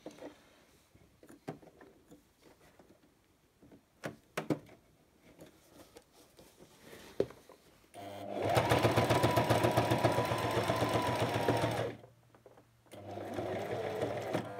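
Brother electric sewing machine stitching at speed for about four seconds, a rapid even clatter of the needle, which starts and stops abruptly. Before it come several seconds of scattered small clicks and handling sounds, and a quieter sound follows near the end.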